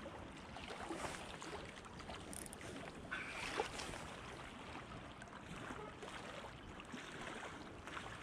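Steady rush of the river current along the bank, mixed with wind noise on the microphone. A brief handling knock about three and a half seconds in.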